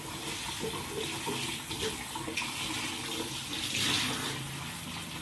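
Kitchen tap running into a stainless steel sink, the stream splashing into a bowl of red dates as they are rinsed.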